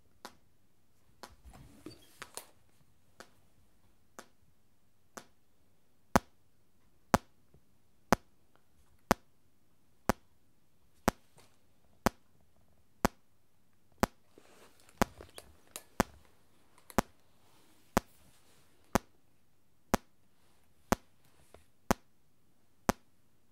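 Repeating test-pulse clicks, about one a second, picked up by a Neumann microphone. They are faint for the first few seconds, then much louder from about six seconds in. Each click is clean and short, a neutral-sounding pulse response with little added.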